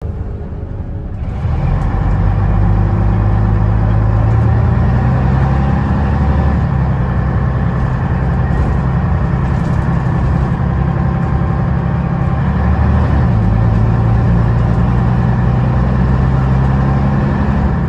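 Scania BR112DH double-decker bus's diesel engine under way. It is quieter for the first second, then the engine note rises sharply as the bus pulls away and holds steady, with a brief change in the note about two-thirds of the way through.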